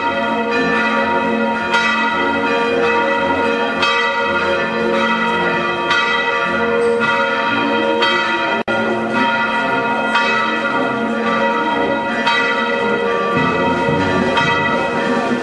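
Church bells pealing, many strokes overlapping into a continuous ringing, with a very brief break just past halfway.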